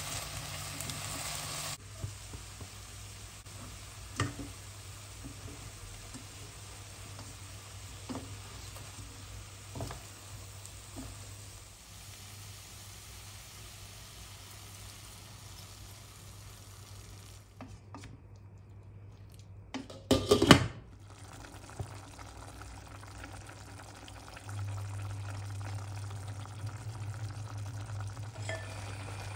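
Broccoli, onion and potato sizzling in oil in a stainless steel pot while being stirred. After a cut, hot water is poured over them, with a few knocks of the spoon and a loud clatter about two-thirds of the way through. Near the end the pot simmers steadily as it is stirred.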